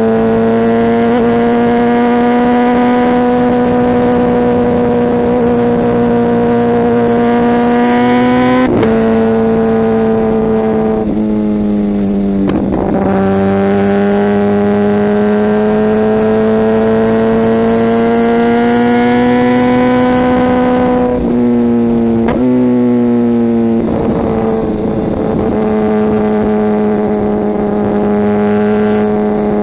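Kawasaki ZX-10R inline-four running through a Mivv aftermarket exhaust while riding. It holds a steady, slowly rising note, and the pitch drops sharply and climbs back a few times, about 9 seconds in, around 12 to 13 seconds, around 21 to 22 seconds and about 24 seconds in.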